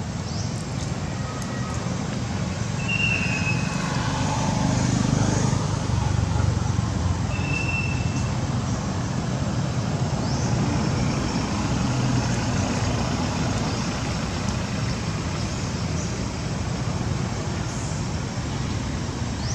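Steady low rumble like distant vehicle traffic, swelling about four to seven seconds in, with two brief high chirps over it.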